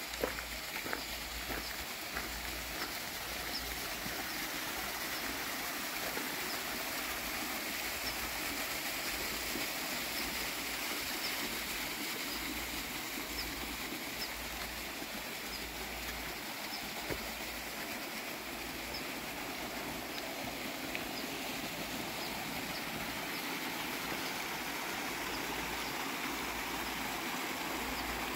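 Small waterfalls splashing steadily down stacked sandstone rocks into pools, a continuous rush of falling water.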